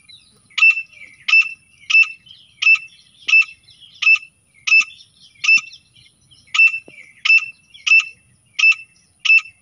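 Grey francolin calling: a loud, shrill, high note repeated about one and a half times a second in a steady series, with a brief pause near the middle.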